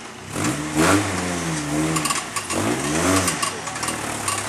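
Off-road rail buggy's engine revving hard twice, pitch climbing and falling each time, under load on a rock crawl, with a few sharp knocks between the revs.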